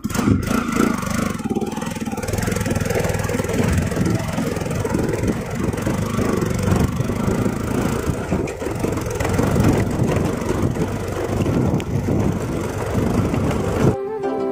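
Motorcycle being ridden over a rough cobbled stone path: the engine runs under a dense rumbling noise. About fourteen seconds in it cuts off and flute music begins.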